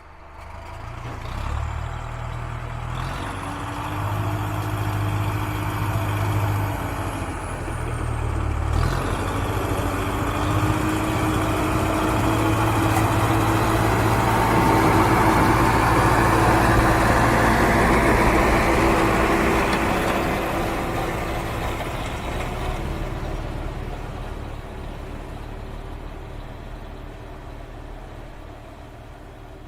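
Tractor engine running, growing louder to a peak about halfway through and then fading away, as if passing by. Its engine note shifts once, about a third of the way in.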